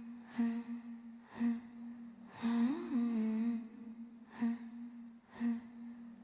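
Opening of a song: a voice humming one low held note in short phrases, each starting with a breathy attack about once a second, with one brief swoop up in pitch and back near the middle.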